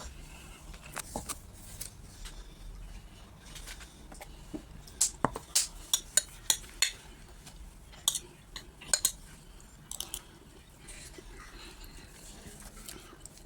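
Cutlery clinking and scraping against a plate while eating rice and stew, in irregular sharp taps with a busier run of clinks in the middle.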